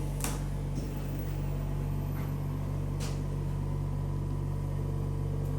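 Steady low machine hum with a faint steady higher tone, and two short clicks, one just after the start and one about three seconds in.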